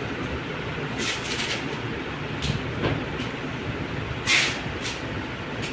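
Plastic packaging rustling in short crinkly bursts as a shrink-wrapped earbuds box is handled over bubble wrap, the loudest about four seconds in, over a steady background rumble.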